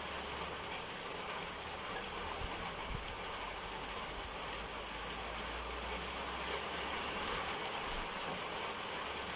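Steady, even hiss of outdoor background noise with a faint low rumble underneath.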